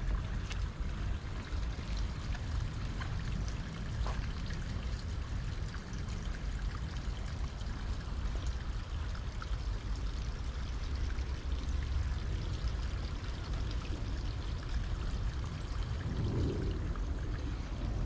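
Wind buffeting the microphone: a steady, uneven low rumble over an even rushing hiss.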